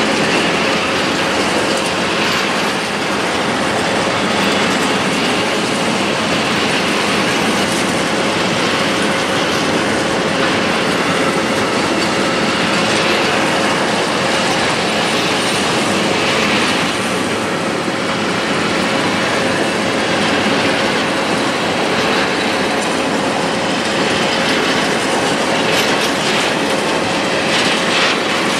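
Freight train of open-top coal wagons rolling past close by: a steady heavy clatter of wheels on the rails and rail joints, with a thin steady squeal from the wheels on the curve.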